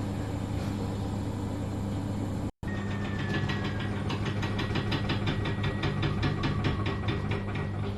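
Electrolux washing machine with its drum speeding up, the motor humming steadily. From about three seconds in comes a fast, even knocking, about five knocks a second: the knock that the machine's owner is showing off. The sound cuts out for an instant just before the knocking starts.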